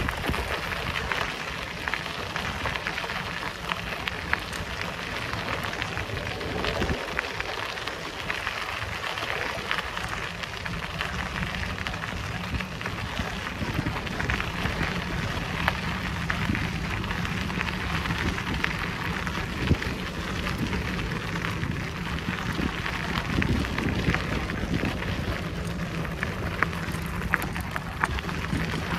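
Bicycle tyres rolling over a rough forest track: a steady crackling hiss with scattered sharp ticks over a low rumble.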